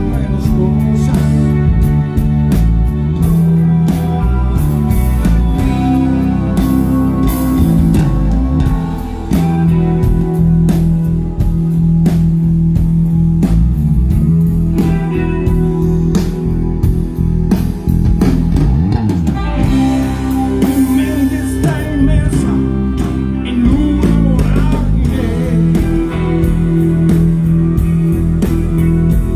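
Live band playing, with electric guitar out front over a drum kit and an electric upright bass.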